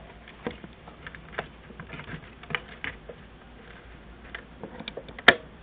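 Plastic clicks and handling of a Cars-themed radio alarm clock as its buttons and switches are worked: scattered light clicks, with one sharp, louder click near the end.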